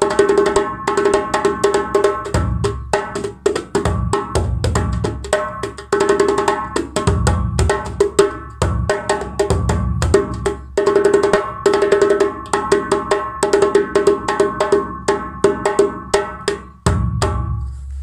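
Iroko djembe played with bare hands: a fast, dense rhythm of ringing slaps and open tones, with deep bass strokes every few seconds. The playing stops just before the end.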